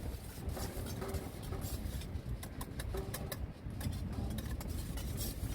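Light clinks of a spoon stirring potato-starch slurry in a small cup over a steady low rumble.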